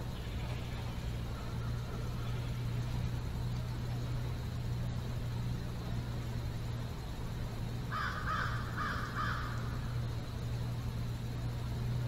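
A bird calling in the woods: a quick run of about four harsh notes about eight seconds in, over a steady low hum.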